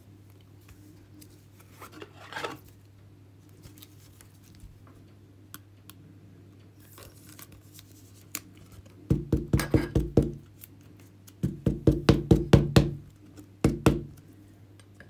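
A card slid into a clear rigid plastic card holder and stood in a plastic display stand: light handling rustles, then, about nine seconds in, three quick runs of sharp clicks at roughly seven or eight a second, the loudest sound here. A steady low hum runs underneath.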